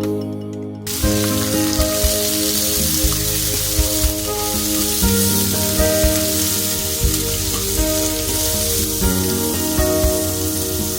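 Food sizzling as it fries in a hot pan. The sizzle starts suddenly about a second in and goes on steadily, over background music.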